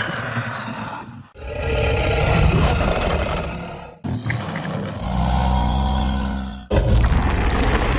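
Giant-monster roar sound effects played back to back, each a long, rough roar of two to three seconds that starts and cuts off abruptly.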